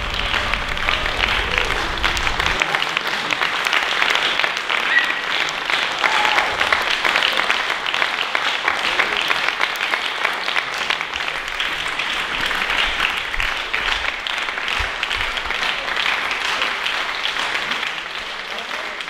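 Audience applauding, a dense steady clapping that eases slightly near the end. A low note of the music dies away about two and a half seconds in.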